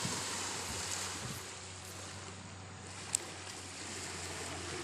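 Steady rush of sea surf and wind at the shoreline, with a faint low hum underneath and one brief sharp tick about three seconds in.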